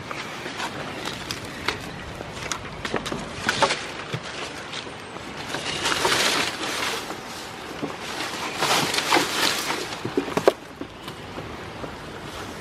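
Goats browsing a leafy bush: leaves and twigs rustle and snap in irregular bursts, with scattered clicks and a sharp knock about ten seconds in.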